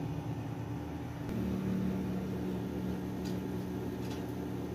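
A steady low mechanical hum, like a small motor running, that steps up in pitch about a second in and then holds, with a couple of faint clicks.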